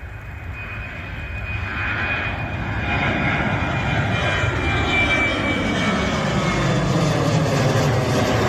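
Boeing 737-800 jet's CFM56-7B turbofan engines at departure thrust, growing steadily louder. A high fan whine rides over a rumble, and its pitch slides steadily downward as the jet passes.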